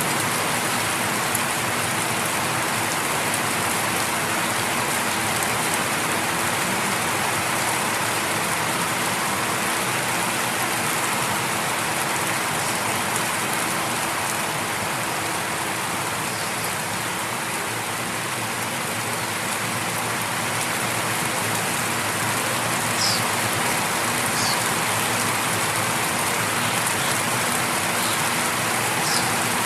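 Light rain falling steadily on outdoor surfaces, an even hiss of many small drops.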